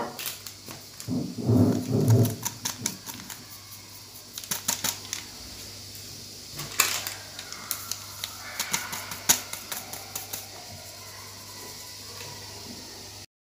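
Stainless steel mesh sieve being shaken and tapped to sift flour and cocoa into a plastic bowl: irregular light taps and rattles throughout, with a brief low muffled sound between about one and two seconds in.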